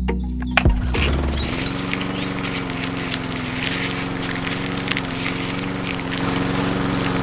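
A small motor starts running about a second in, after a few sharp clicks, and keeps up a steady hum.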